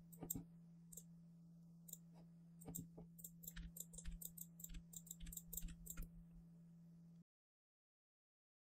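Faint clicks of a computer mouse and keyboard, a few at first and then in quick runs between about three and six seconds in, over a low steady electrical hum. The sound cuts to dead silence about seven seconds in.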